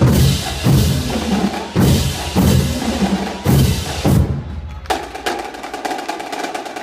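Marching drumline playing: deep bass drum hits about every half second to a second over snare and wood-block-like clicks, stopping about four seconds in. A dense run of quick clicks follows near the end.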